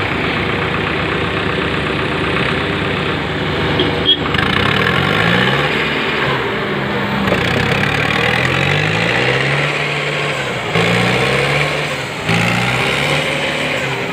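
Diesel tractor engines running hard, revving over and over, the pitch climbing and dropping back again and again, as the tractors strain against each other in a tug-of-war pull.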